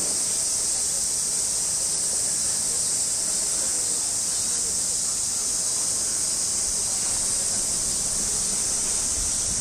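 Summer cicada chorus: a steady, high-pitched hissing drone.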